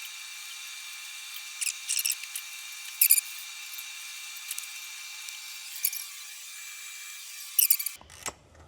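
Hand tools clicking and clinking on engine metal, scattered sharp clicks over a steady high-pitched whine, the whole sound thin with no low end, during the teardown of a 2JZ engine's top end.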